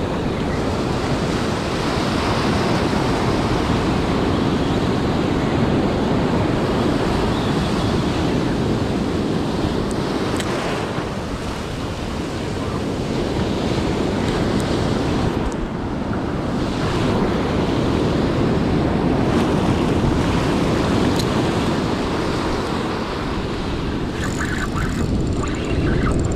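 Surf washing up a sandy beach, a steady rush of breaking whitewater that swells and eases as waves run in, with wind buffeting the microphone.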